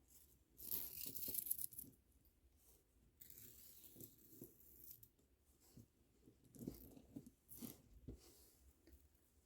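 Faint handling noise of a beaded kandi cuff being repaired: two short stretches of rustling as string is pulled through plastic beads, then scattered small clicks and taps of the beads.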